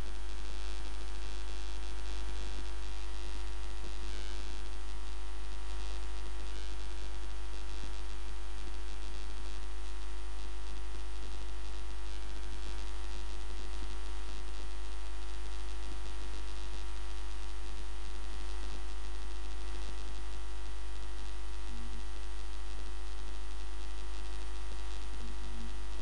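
Steady low electrical hum with a fainter, higher steady tone above it, unchanging: background noise in the recording while no one speaks.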